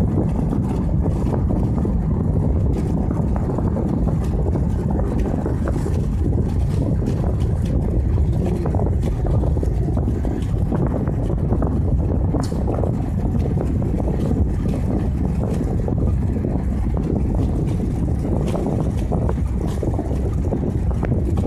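Wind buffeting the microphone over the running noise of a moving vehicle: a steady, loud low rumble with occasional faint ticks.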